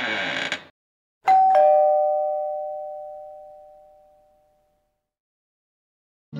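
Two-note ding-dong chime like a doorbell: a higher note and then a lower one a quarter second later, both ringing out and fading over about three seconds. Before it, the tail of an intro sound with sweeping pitch cuts off under a second in.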